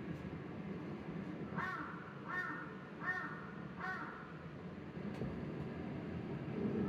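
Recorded crow calls played back: four short, harsh caws in quick succession, about three-quarters of a second apart, starting a second and a half in, and another call near the end.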